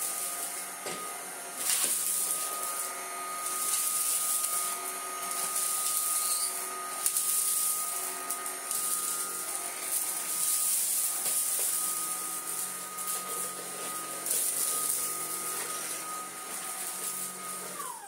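Tineco A11 Hero cordless stick vacuum running with a steady high whine while its powered floor head sucks up loose dry debris from a hard floor, grit crackling and rattling through it. Near the end it is switched off and the motor winds down with a falling pitch.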